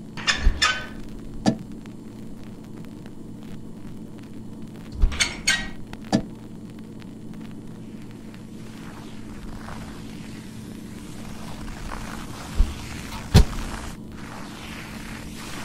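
A steady low hum, broken by a few sharp knocks and clicks: a cluster near the start, another around five to six seconds in, and two more near the end.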